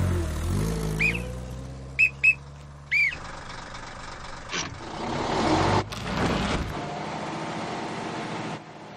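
Truck engine running with a steady low drone that dips and rises in pitch near the start and stops abruptly about three seconds in, with four short high whistle-like chirps over it. Then a rushing noise swells and dies away.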